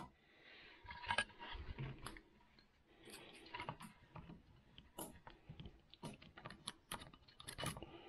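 Faint scattered light clicks and small rattles, like small hard parts of a model truck being handled or moved, with no steady motor sound.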